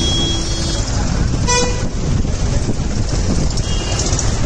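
Tractor engines running in a slow street procession, a steady rumble, with a vehicle horn held for under a second at the start and a short horn toot about a second and a half in.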